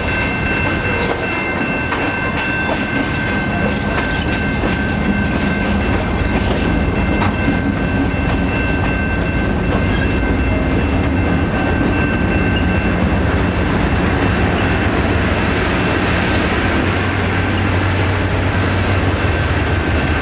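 Freight train passing close: covered hopper cars rolling with wheel clatter and a steady high-pitched squeal through the first half, then diesel locomotives going by with a deeper engine rumble growing stronger near the end.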